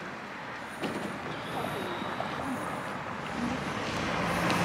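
A motor vehicle approaching along the street, its engine and tyre noise growing louder toward the end, over faint voices.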